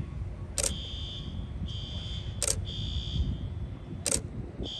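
Building alarm sounding outside, a high electronic tone pulsing on and off about once a second. Three sharp clicks about a second and a half apart stand out above it, over a low rumble.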